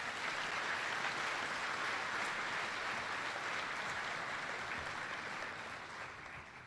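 Audience applauding, a dense steady clapping that holds for several seconds and fades out near the end.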